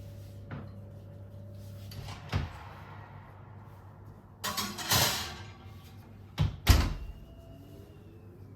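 Cupboard doors being opened and shut: a few light knocks, a scraping, rustling stretch around five seconds in, then two sharp bangs near the end, the second the loudest. A low hum stops about two seconds in.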